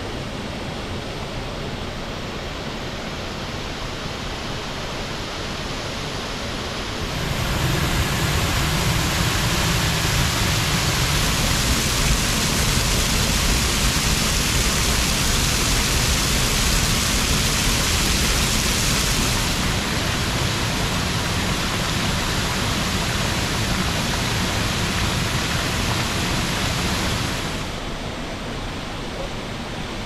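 Keila waterfall's water pouring over a rock ledge, a steady rush. It steps up louder about seven seconds in and drops back shortly before the end.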